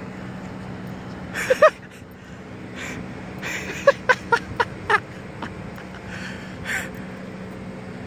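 Stifled laughter from the person filming: a couple of short giggles about a second and a half in, then a quick run of four or five near the middle, over a steady hum of outdoor traffic.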